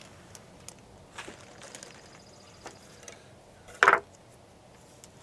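Light handling taps on a wooden cutting board, then one short loud knock about four seconds in as the kitchen knife is set down on the board.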